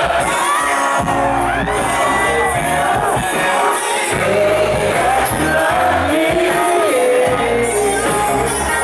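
Live band playing, with electric guitars and drums, and a voice singing gliding lines over it, heard from among the audience.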